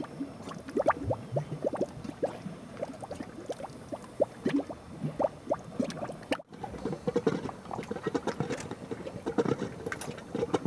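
Mud volcano bubbling: gas bubbles bursting up through wet mud in quick, irregular plops and gurgles, with a momentary break about six seconds in.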